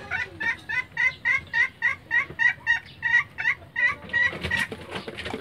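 Chicken clucking in a quick, even run of short high calls, about three to four a second, ending in one longer call, followed by a few soft knocks near the end.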